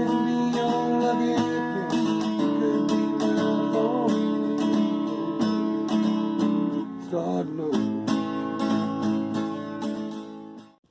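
Background music: acoustic guitar strumming, stopping abruptly at the end.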